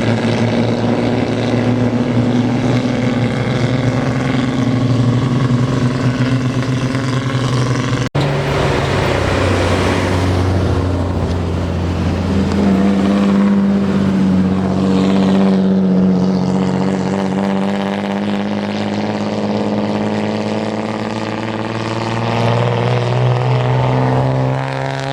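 Loud exhausts of old Japanese custom cars rolling in at low speed, their engines running steadily with light revving. There is an abrupt break about a third of the way through, and a different engine note follows.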